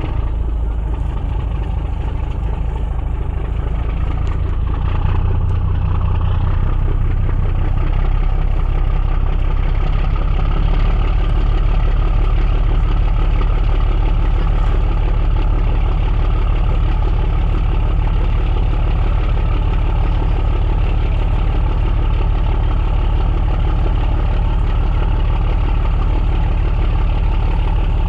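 Ferry's diesel engine running steadily, a low drone that grows a little louder about five seconds in.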